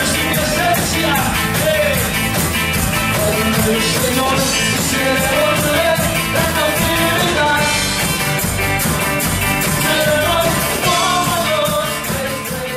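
Band music with a singing voice over a steady drum beat, fading out near the end.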